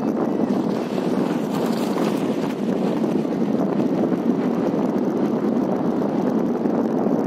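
Steady rush of a fast, rocky mountain river running over boulders and rapids.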